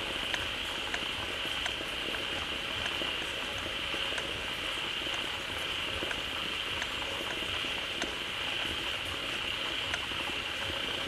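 A dense, continuous chorus of many frogs calling at once, gathered at a pond freshly filled with water. A steady high-pitched drone runs over it, with many small sharp clicks scattered through.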